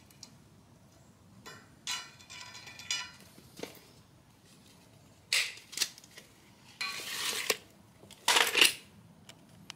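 Steel bar stock being handled and sorted: a series of metallic clinks and clanks, a couple ringing about two seconds in, then louder, longer scrapes and knocks near the end.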